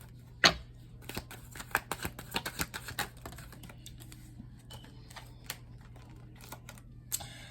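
Tarot cards being handled: a run of quick clicks and taps as the cards are shuffled and laid down, busiest in the first few seconds and thinning out later, over a faint steady hum.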